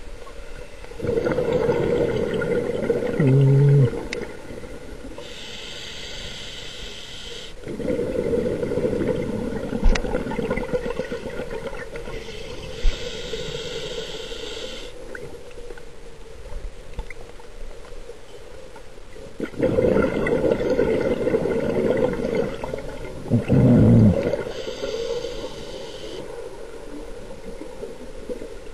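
Scuba diver breathing through a regulator underwater: three slow breaths, each a rumbling gush of exhaled bubbles followed by a hissing inhale through the demand valve.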